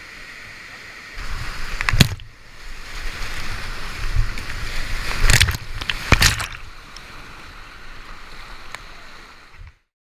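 Kayak running whitewater rapids: rushing river water and splashing, with three loud sharp knocks or splashes about two, five and six seconds in. The sound cuts off suddenly near the end.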